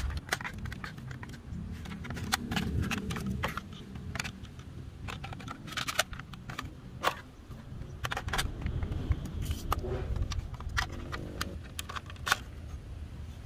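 Hard plastic parts of a toy AK-47 clicking, tapping and rattling as they are handled and snapped together, with a low rumble underneath.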